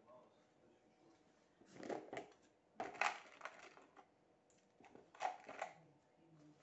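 Packaging crinkling and crunching as it is handled, in three short bouts about a second apart.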